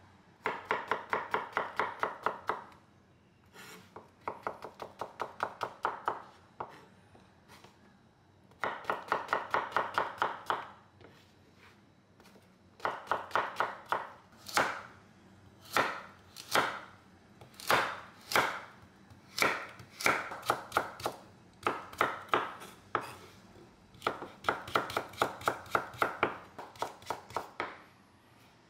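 Chef's knife chopping zucchini and burdock root on a wooden cutting board. Runs of quick strokes, several a second, broken by short pauses, with slower, spaced cuts partway through.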